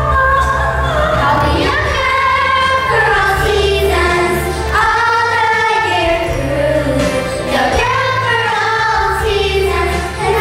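A girl singing a Broadway show tune over instrumental accompaniment with a steady, pulsing bass.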